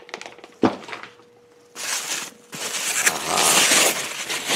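White packing wrap rustling and crinkling as it is pulled back inside a cardboard box, loud from about two seconds in, after a single thump near the start.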